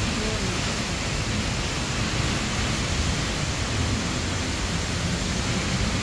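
Tall waterfall plunging into its pool, heard up close: a steady, even rush of falling water.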